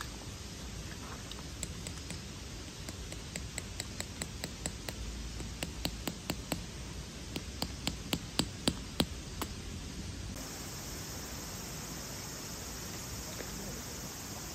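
Quick runs of sharp taps, about four or five a second, getting louder toward the end: a hammer driving a tent peg into gravelly ground. A steady hiss lies underneath.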